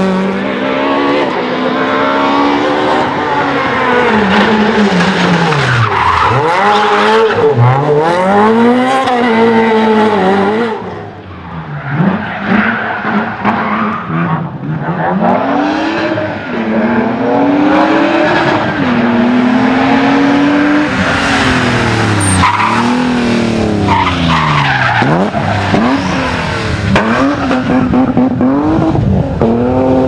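Rally cars on a stage, including a Ford Escort Mk2 and a BMW 3 Series, with engines revving hard and repeatedly rising and falling in pitch as they shift up and down through the gears, and tyres skidding through the corners. The sound drops briefly about eleven seconds in, then a different car picks up.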